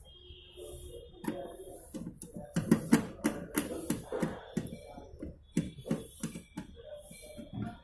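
Irregular clicks and knocks of metal parts being handled as a replacement magnetron is fitted into a microwave oven's chassis, loudest in a cluster about three seconds in.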